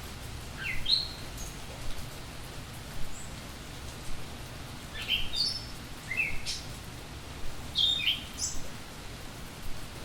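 A songbird giving short, rising chirps in about four quick clusters, over a steady hiss of rain.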